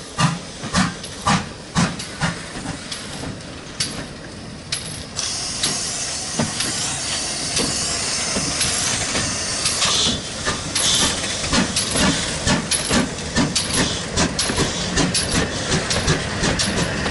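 GWR 28xx class 2-8-0 steam locomotive 2807 pulling away, its exhaust beats about two a second at first and quickening to about three a second. A steady steam hiss sets in about five seconds in.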